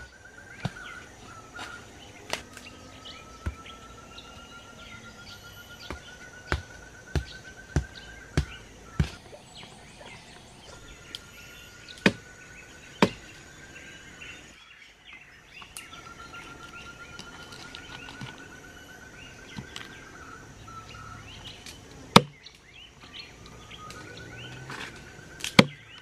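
Utility cutter knife chopping quail meat and small bones on a banana leaf laid over a log, in sharp, irregular knocks. Behind it, a forest creature's long pulsing trill slowly rises in pitch and comes back four times, over a faint steady high buzz.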